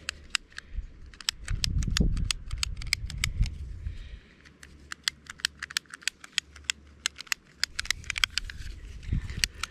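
Piezo igniter of a long-nosed utility lighter clicked over and over in rapid, irregular runs as its trigger is pressed without the lighter catching. A low rumble comes in about two seconds in.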